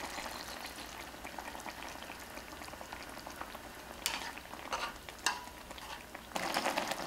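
Pork and broth simmering and sizzling in a frying pan with beaten egg added: a steady hiss. Wooden chopsticks click against the pan a few times about four to five seconds in, and the sizzle grows louder near the end.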